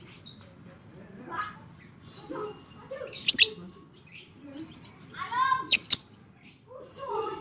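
Lovebird calling: a loud, sharp shriek about three seconds in, then a quick run of rising chattering notes ending in two more sharp shrieks near six seconds.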